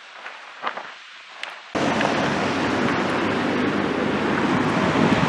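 Strong wind blowing across the microphone in a snowstorm: a loud, steady rushing noise with heavy low buffeting that starts abruptly about two seconds in. Before it, quieter outdoor sound with a few faint clicks.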